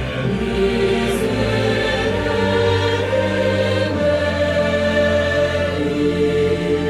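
Intro music with a choir singing slow, sustained chords.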